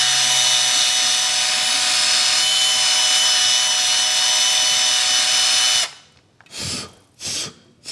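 Milwaukee cordless power screwdriver running steadily with a whine, spinning a cleaning bit in a wheel rim's valve-stem hole to clear out built-up crud. It stops about six seconds in, and two or three short bursts follow.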